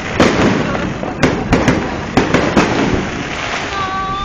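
Fireworks going off: a quick run of sharp bangs in the first three seconds over constant crackling and popping. A steady high tone comes in near the end.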